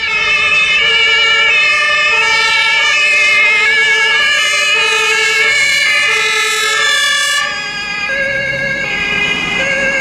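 Two-tone sirens of German fire brigade vehicles on an emergency run, several sounding at once, each alternating between a high and a low note. A little after seven seconds in, part of the sound drops away and one two-tone siren carries on.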